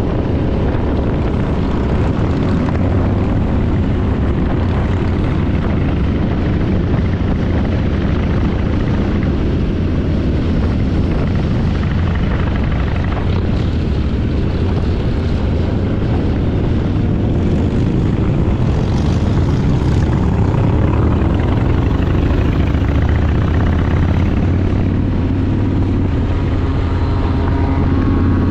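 Motorcycle engine running steadily at cruising speed, with wind rushing over the microphone; the engine pitch rises and falls a little in the second half.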